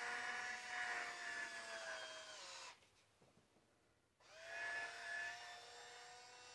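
Battery-powered electric wine opener's small motor whirring as it drives its corkscrew into the cork, in two runs. The first stops under three seconds in, its pitch sagging slightly just before it stops. The second starts about four seconds in.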